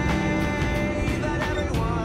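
Background music: a song with a steady beat.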